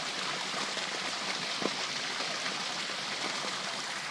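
Garden pond waterfall: water spilling down stacked stone ledges into the pond, a steady splashing rush.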